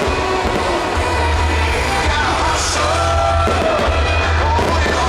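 Loud music with a singing voice, over a dense crackling noise.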